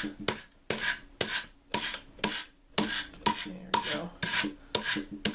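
Hand-cranked drum carder working buffalo fiber: its wire-toothed carding cloth rasps through the fiber in a string of short scrapes, about two a second.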